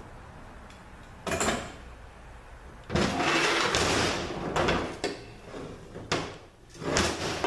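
Metal transaxle parts and hand tools being handled on a workbench: a short clatter about a second in, then a few seconds of uneven scraping and clinking.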